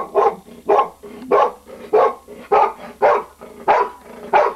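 A dog barking in a steady run of short barks, about two a second.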